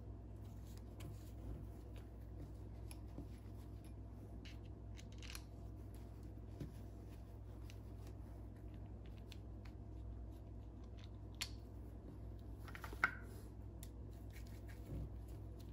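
Faint small clicks and rubbing of a plastic Marinco 70 amp trolling motor plug housing being fitted back together by hand, over a low steady hum. One sharper click comes near the end.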